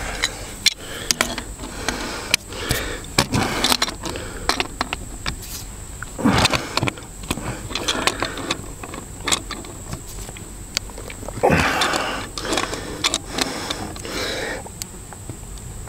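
Handling noise as a brass fitting is worked and tightened onto a plastic water line by hand and with a tool: scattered sharp metal clicks and scrapes with short bursts of rustling.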